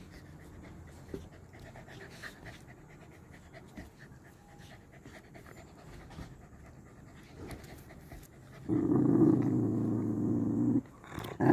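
Dogs panting close to the microphone, with faint ticks. Near the end, a loud drawn-out pitched vocal sound lasts about two seconds.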